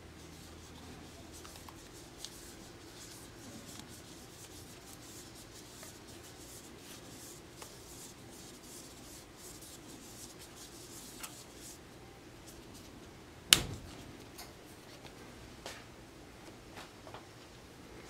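Thread seal tape being stretched and wrapped around the threads of a chrome metal ball valve in the hands, a light rubbing with many small ticks. About two-thirds of the way through there is one sharp, loud click, followed by a few fainter clicks.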